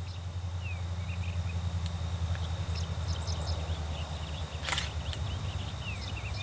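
Low steady rumble of distant Norfolk Southern diesel locomotives approaching, with small birds chirping over it and a thin steady high tone. A single sharp click comes about two-thirds of the way through.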